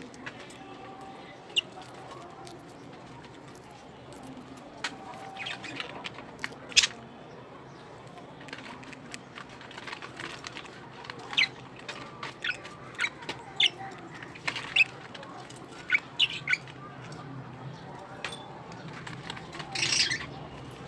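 Budgerigars chirping: scattered short, sharp calls, coming thicker in the middle, with one longer call near the end.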